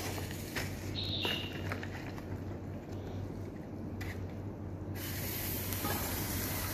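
Hot water being poured into a cup of instant ramyeon: a rushing, splashing hiss, loudest in the last second or two, over a steady low hum.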